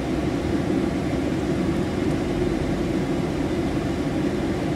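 Steady low rumble of a car's engine and tyres heard from inside the cabin while it is being driven.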